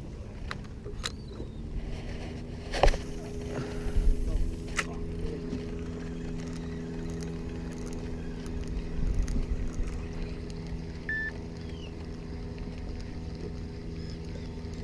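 Boat motor running steadily, with a few sharp knocks in the first five seconds.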